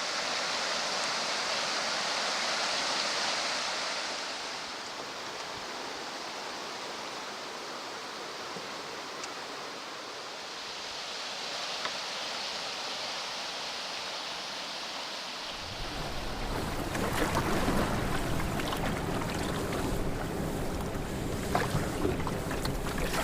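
Steady rush of water from small river rapids. About two-thirds of the way through it changes abruptly to wind rumbling on the microphone, with splashes and knocks of a canoe on the water.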